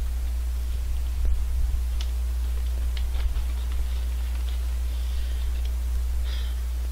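A few scattered crunches and clicks of Honey Tong Tong potato snack chips being eaten, over a steady low electrical hum.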